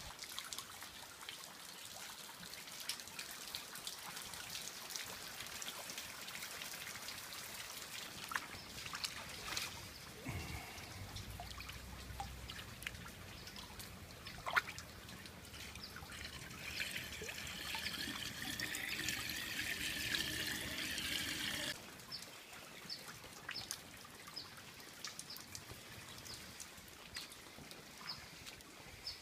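Heavy rain and runoff: water trickling and pouring with many small drop ticks. A louder, denser stretch of running water lasts about five seconds past the middle, and near the end it thins to separate drips.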